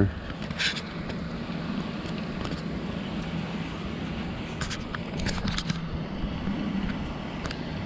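A steady low hum of outdoor background noise, with a few light clicks scattered through.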